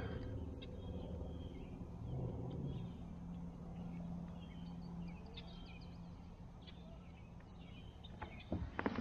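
Pond-side ambience with faint, scattered bird chirps over a steady low hum. Near the end, a few sharp knocks and a rustle of gear against the kayak.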